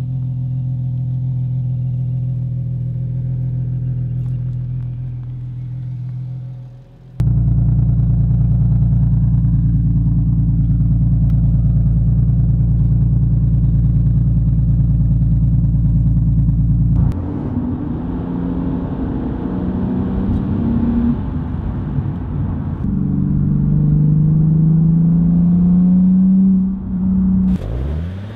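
Nissan 370Z's 3.7-litre V6 idling through AAM short-tail exhaust sections, a steady low drone. About seven seconds in it is suddenly louder, heard right at the tailpipe. From about seventeen seconds it runs rougher, and near the end the revs climb steadily for a few seconds.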